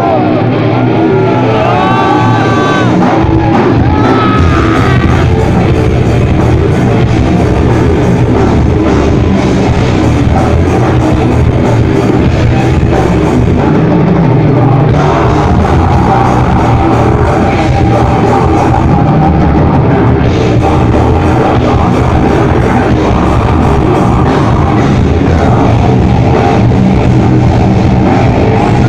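Rock band playing loud live: electric guitars, bass and drums, with vocal yells in the first few seconds.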